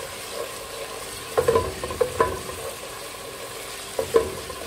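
Onions and ginger-garlic paste sizzling in oil in an aluminium pot while being fried until fragrant, stirred with a wooden spatula. The spatula knocks and scrapes against the pot in three short bursts, each with a brief metallic ring.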